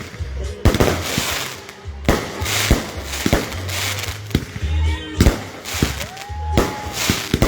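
Consumer aerial fireworks going off in quick succession: a string of sharp bangs from shells bursting overhead, with crackling after them.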